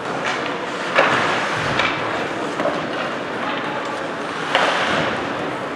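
Ice hockey game noise in an indoor rink: a steady wash of rink noise broken by a few sharp knocks, loudest about one second and about four and a half seconds in.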